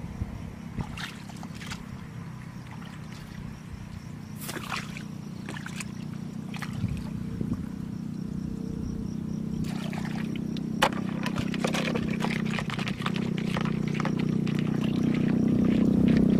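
Hands squelching and splashing in shallow muddy water, with scattered wet slaps and trickles. Under it runs a steady low motor hum that grows louder toward the end.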